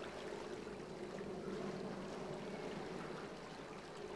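Steady waterside ambience: small waves lapping, with an even hiss and scattered soft ticks and splashes.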